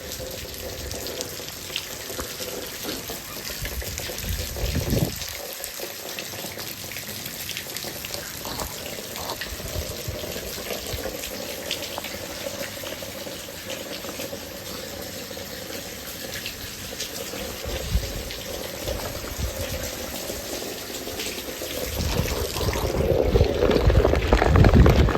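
Heavy rain falling steadily, with a running, pouring-water sound. It grows louder, with a low rumble, in the last few seconds.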